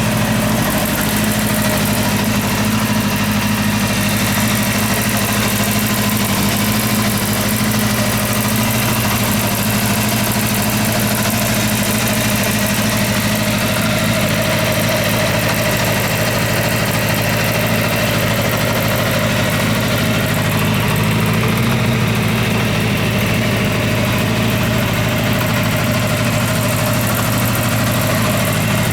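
Kawasaki Zephyr 550's air-cooled inline-four engine idling steadily, running evenly.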